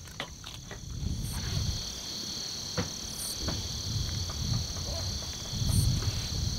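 Night insects such as crickets trilling steadily, with frogs croaking in low bursts that come and go. A few faint clicks sound near the start.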